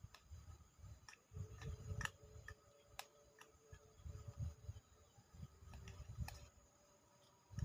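Low, uneven rumble of wind gusts, with faint scattered ticks and clicks, most of them in the first half.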